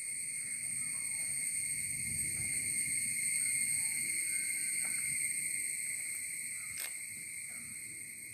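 Steady, high-pitched chorus of insects droning without a break, with a low rumble swelling in the middle and a single sharp click about seven seconds in.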